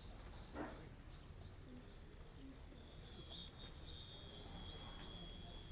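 Faint outdoor ambience with a single short knock about half a second in, then a bird calling with a thin, high, held note with small flicks, starting about three seconds in.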